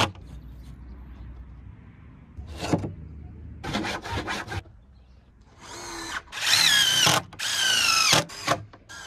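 DeWalt cordless driver driving screws into wooden fence rails, in several short bursts of motor whine that rise and fall in pitch, the longest in the second half.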